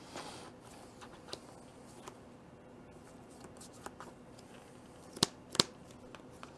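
Playing cards being handled on a tabletop: a soft slide at the start, a few light taps, and two sharp clicks a little under half a second apart about five seconds in.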